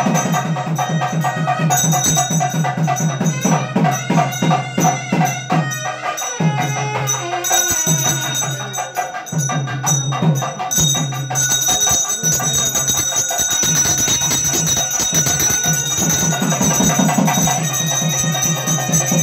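Temple ritual music accompanying an aarti: fast, steady drumming with bells ringing, easing off briefly partway through.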